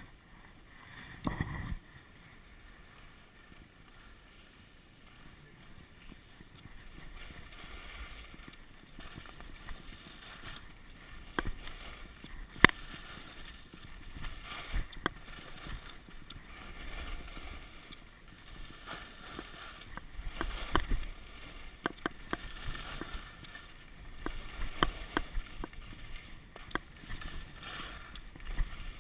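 Skis hissing and scraping over packed, groomed snow on a downhill run, the sliding noise building after the first few seconds and swelling and easing with the turns. Scattered sharp clicks and knocks, and a low thump near the start.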